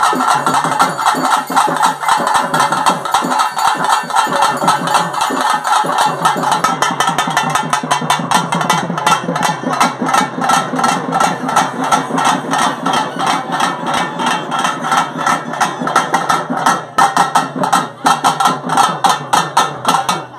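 Loud, fast drumming on temple festival drums, a dense rhythm of strikes that stops abruptly near the end.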